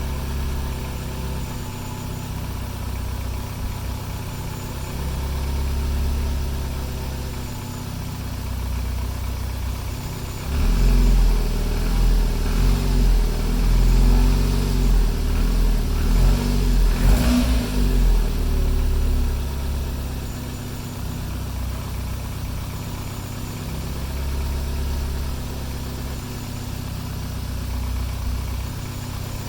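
Renault Megane engine with forged internals, on its first run after the rebuild, idling steadily. About a third of the way in it is revved several times, with one sharp blip near the two-thirds mark, then settles back to idle.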